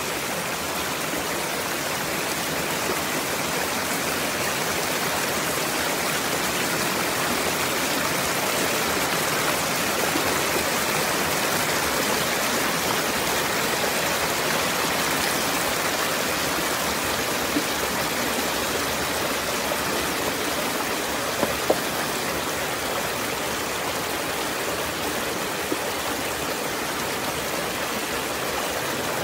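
Shallow jungle stream rushing and tumbling over rocks, a steady unbroken water sound, with a few brief knocks in the second half.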